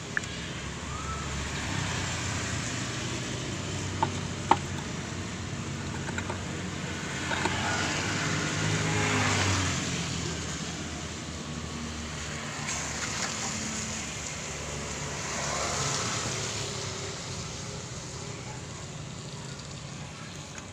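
A motor vehicle engine running steadily and swelling louder twice, once around the middle and again later, with two sharp clicks about four seconds in.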